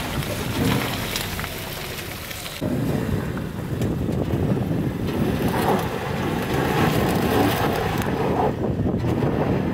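Old Toyota Land Cruiser's engine running under load off-road, its revs rising and falling, with an abrupt change in the sound about two and a half seconds in.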